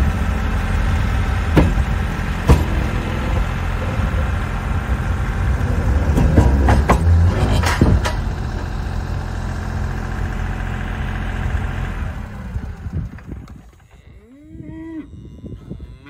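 Kioti CK3510 SE compact tractor's three-cylinder diesel running under load while pushing a wooden chicken coop, with a few sharp knocks. The engine fades out about 13 seconds in, and a cow moos near the end.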